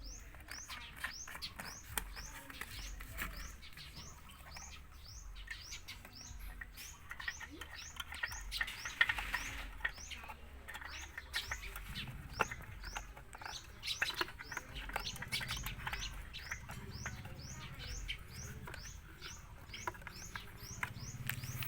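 A small bird chirping over and over, short rising chirps about two or three a second, with scattered faint clicks and knocks underneath.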